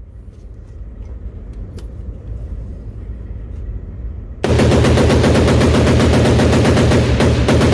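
A short-barrelled 5.56 AR-15 (10.5-inch Sig M400 with a Surefire Pro Comp muzzle device) fired semi-automatically as fast as the trigger allows: after a few quiet seconds, a sudden, fast, even string of loud shots begins and keeps going.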